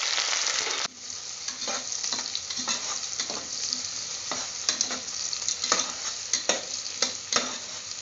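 Sliced onions and green chillies frying in hot oil and ghee in a pressure cooker, sizzling. A metal spatula stirs them, scraping and knocking against the pot. The sizzle is loud at first and drops sharply about a second in.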